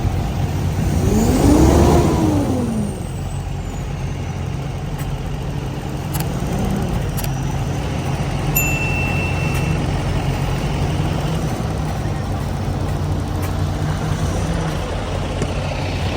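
Semi-truck diesel engine running steadily, its pitch rising and falling once in the first few seconds as it is revved. A brief high beep sounds about halfway through.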